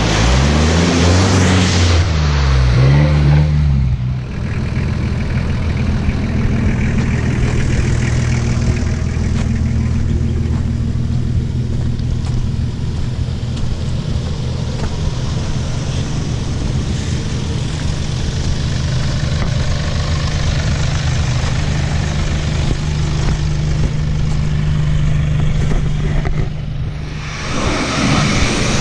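A 4WD's engine revving up and down for the first few seconds, then running at a steady speed as a low, even drone.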